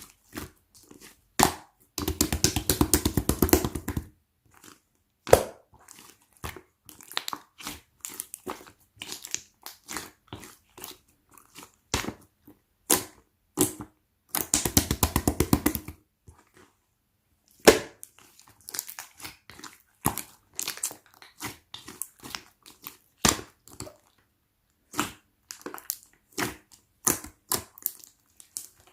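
Translucent slime mixed with pearl beads being pressed and squeezed, giving sharp crackling clicks and squishes, with two runs of fast, dense clicking lasting about two seconds each, near the start and in the middle.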